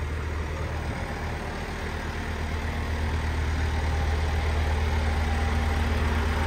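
An engine idling steadily: a low, evenly pulsing hum that grows slightly louder over the few seconds.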